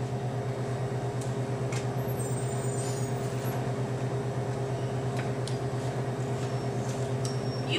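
Steady low machine hum with a fast, even pulse, and a few faint clicks over it.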